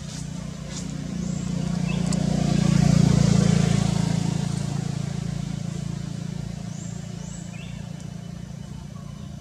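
A motor vehicle driving past, its engine hum swelling to a peak about three seconds in and then fading away.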